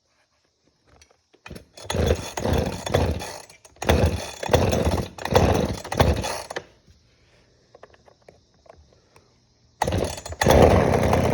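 Husqvarna 345R brushcutter's two-stroke engine being pull-started: a few rough bursts of cranking on the recoil starter, then about ten seconds in it catches and keeps running.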